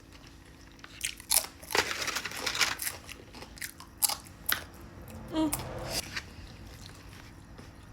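A person biting and chewing food close to the microphone, in irregular short bursts of mouth noise, busiest about two seconds in.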